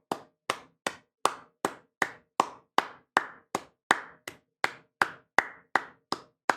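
One person clapping hands steadily, nearly three sharp claps a second.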